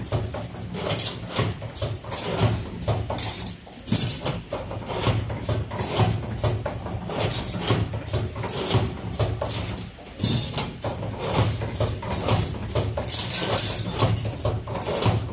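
A 2D wire bending machine at work: a low hum with frequent, irregular clicks and clatter as the bending head and wire move.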